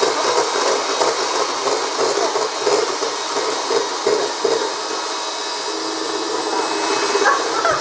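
Electric hand mixer running steadily, its beaters beating eggs and sugar in a stainless steel bowl.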